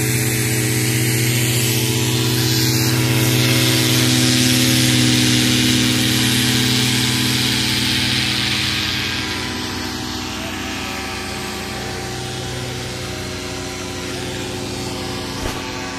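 Paramotor engine and propeller running steadily; it is loudest in the first half and settles a little quieter after about nine seconds. A brief knock comes near the end.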